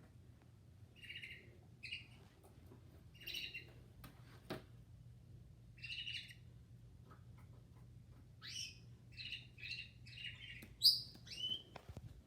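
Birds chirping: short separate calls, a few spaced out at first, then a quicker run of about six chirps near the end.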